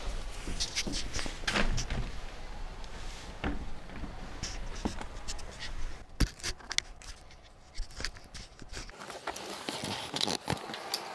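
Handling noise of a small camera being picked up and moved: rustling with scattered clicks, knocks and scrapes, the loudest a sharp knock about six seconds in.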